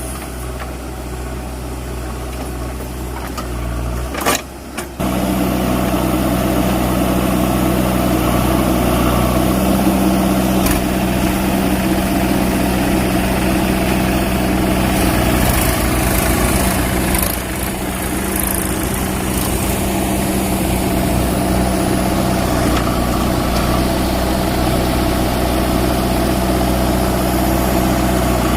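Diesel engine of a JCB 3DX backhoe loader running steadily under light load. It briefly drops out about four seconds in, then comes back somewhat louder.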